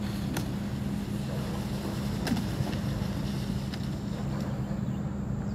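A steady low mechanical hum, like a motor running, over a noisy background, with a few faint clicks, one about two seconds in.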